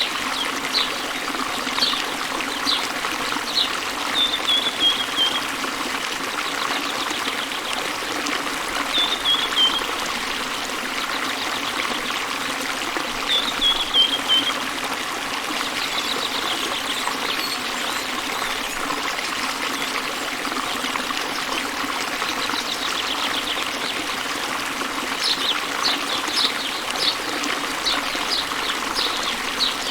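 Small waterfall pouring into a river: a steady rush and splash of water. Over it, birds sing high, short chirps, with a quick run of falling notes three times and rapid repeated chirps near the start and again near the end.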